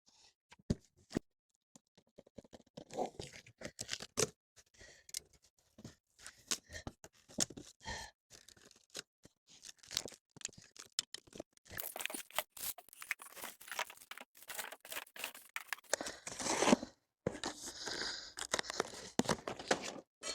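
Packaging being opened and handled: cardboard and plastic tearing, rustling and scraping, with many small knocks and clicks, busiest in the second half.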